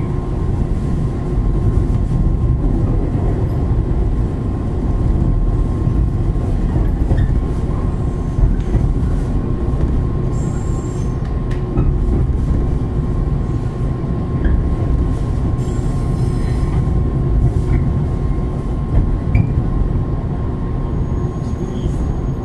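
Running sound of a 123 series single-car electric railcar (KuMoHa 123-2) under way: a steady rumble of wheels on rails with a steady whine. There are brief high wheel squeals twice, about ten and fifteen seconds in.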